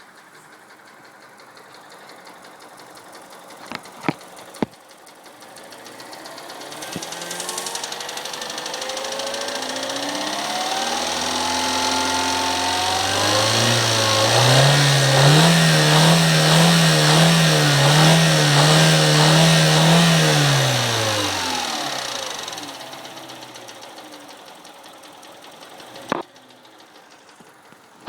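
Mini Cooper N12 four-cylinder engine knocking, which the owner takes for rod knock. It is revved up, held high and loud for several seconds, then let back down to idle. There are a couple of sharp clicks before the rev and one after it.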